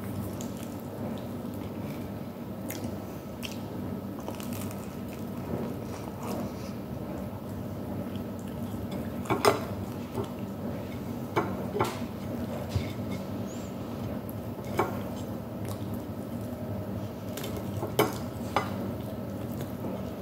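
A few short, sharp clinks of a plate on the table as food is picked off it by hand, scattered through the second half, over a steady low background hum.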